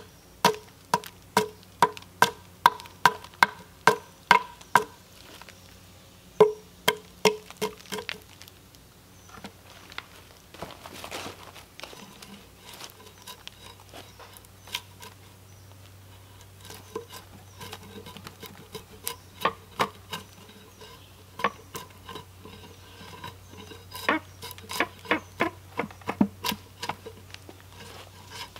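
Hatchet striking a log on a sawhorse: runs of sharp, ringing knocks, about two a second, in a few bursts. A scraping pull, as of a drawknife peeling bark, comes a little before the middle.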